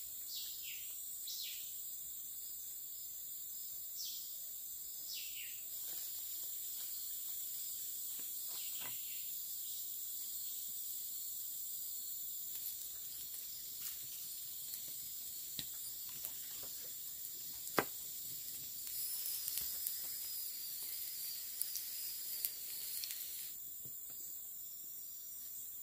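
Steady high-pitched drone of rainforest insects, with a few falling whistled calls in the first five seconds. Scattered pops and cracks of a small wood campfire come through, the sharpest about 18 seconds in, with a denser run of crackling near the end.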